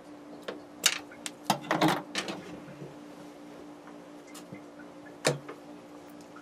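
Handling clicks and knocks of small parts and tools during wiring work: a quick run of sharp clicks between about half a second and two and a half seconds in, and one more sharp knock a little after five seconds, over a steady low hum.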